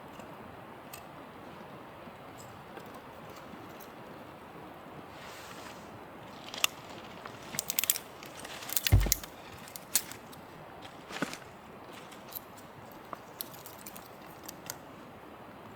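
Handling noises: a scatter of sharp clicks and knocks over a steady background hiss, with one heavier thump about nine seconds in.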